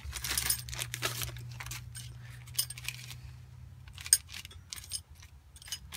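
Small metal drum-brake hardware parts (springs, clips, washers) clinking and jangling as they are sorted and pushed around by hand, a scatter of sharp little clinks with one louder clink about four seconds in.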